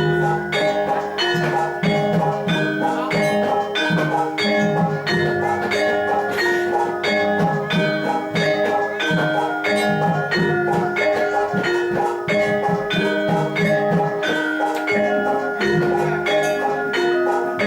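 Gamelan ensemble playing jathilan accompaniment: tuned bronze metallophones struck in a steady, even beat of about two to three strokes a second, ringing notes layered over one another.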